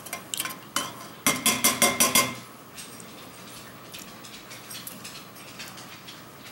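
MRE spoon stirring a drink in a metal canteen cup, knocking against the cup: a few light clicks, then a quick run of about six ringing clinks over a second, then only faint small ticks.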